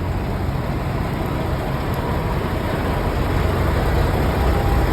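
Steady low rumble of idling truck engines, growing slightly louder toward the end.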